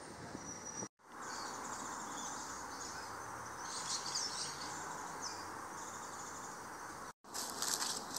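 Birds chirping in short high calls over a steady outdoor hiss, broken by two brief dropouts. Near the end, footsteps on a dirt path scattered with dry leaves.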